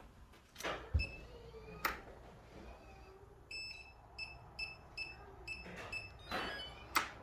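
HEANTLE smart door lock's keypad beeping while the lock is tested. There is one short high beep about a second in, then a quick run of about seven short beeps, with scattered clicks and a louder click near the end.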